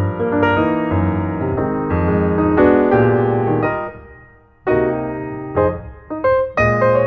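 Background piano music, a melody of struck notes over held lower notes, dropping away briefly about four seconds in before resuming.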